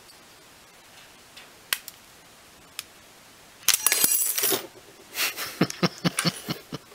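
Two light plastic clicks, then from about halfway a burst of clattering and rattling with scattered clicks after it. These come from the opened Astro 40SLMAX LED work light's plastic housing and lens strip being handled.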